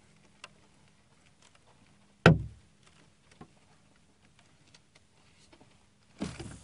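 Faint scattered clicks of a spinning reel being cranked, with a single loud thump against the kayak about two seconds in. Near the end a short rushing swish as the rod is swung into a cast.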